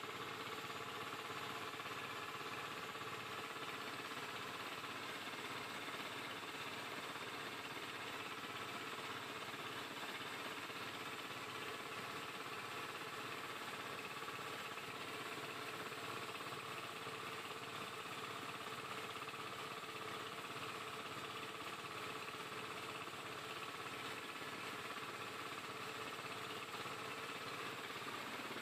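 Engine of a motorised outrigger boat (bangka) running steadily under way, with no change in speed.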